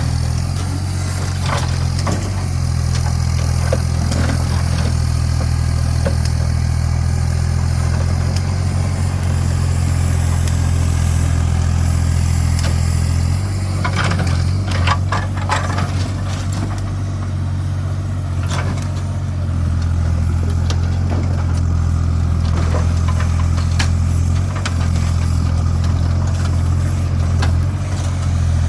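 A heavy scrapyard machine's engine running steadily under load, with scattered sharp knocks and clanks of scrap metal being handled, several close together about halfway through.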